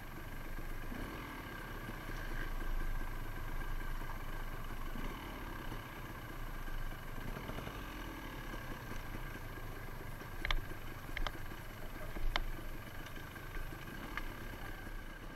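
Beta dirt bike engine running steadily at low revs on a steep downhill trail, with a handful of sharp clicks and knocks in the later seconds.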